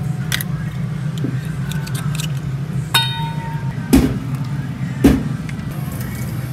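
Clams being shucked into a stainless steel bowl, with shells and meat clinking against the metal. There is a sharp clink with a brief metallic ring about three seconds in, and two duller knocks a second apart after it.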